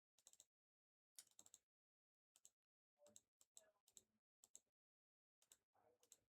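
Near silence broken by faint, scattered short clicks of a computer keyboard and mouse, about a dozen in all, most of them bunched in the middle.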